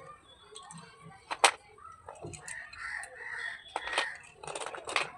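Three sharp clicks of slate pencils being handled and knocked together, with softer, animal-like calls between the second and third clicks.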